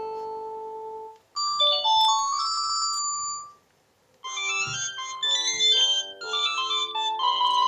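Panasonic cordless phone playing electronic ringtone melodies: a held chord fades out about a second in, a short tune follows, and after a brief pause a busier, faster tune of chords starts about four seconds in.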